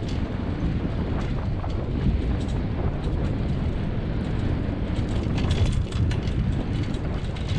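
Wind rushing over the microphone on top of the steady rumble of a dog rig's wheels rolling over a dirt-and-gravel trail, with a scatter of rattles and clicks that is busiest about five to six seconds in.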